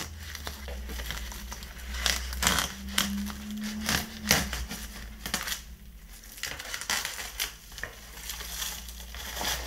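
Clear plastic stretch film and a black plastic bag crinkling and crackling irregularly as they are handled and pulled off a cardboard parcel.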